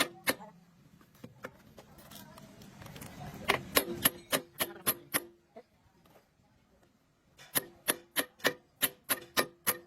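Rapid, even hammer blows on a metal part, about four a second, each ringing briefly; two runs of blows with a short pause between them.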